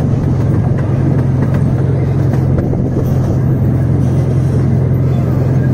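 Zoo train running steadily: a constant low engine hum over a dense rumble.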